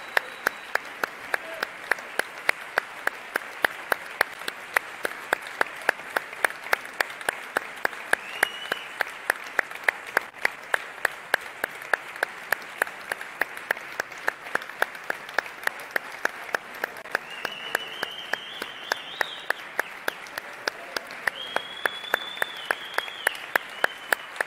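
Audience applauding in a steady rhythm, clapping in unison at about three claps a second over a wash of general applause, with a few high calls rising above it in the second half.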